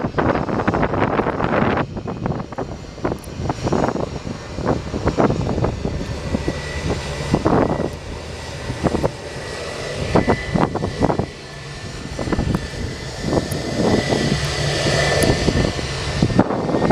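McDonnell Douglas MD-90's twin rear-mounted IAE V2500 turbofans idling as the airliner taxis, with a steady high whine. Wind buffets the microphone throughout and is the loudest sound.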